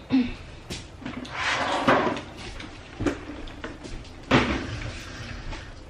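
Hands picking through seafood on metal serving platters: scattered clicks and knocks with a rustle a little over a second in, and one sharp knock about four seconds in.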